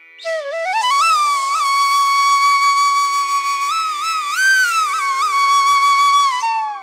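Background music: a solo flute-like melody climbs at the start, holds one long note with small ornamental bends, and slides down near the end, over a faint steady drone.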